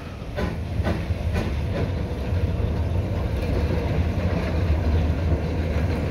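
Tank locomotive dressed as Thomas the Tank Engine rolling slowly along the track towards the listener, a low rumble of wheels on rail growing steadily louder. In the first two seconds there are a few sharp knocks about half a second apart.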